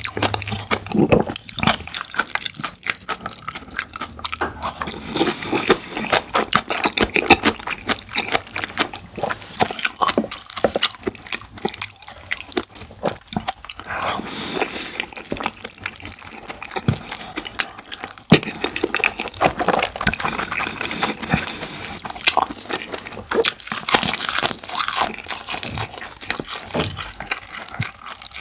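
Close-miked eating of saucy jjajang and curry rice: continuous wet chewing, smacking and slurping mouth sounds.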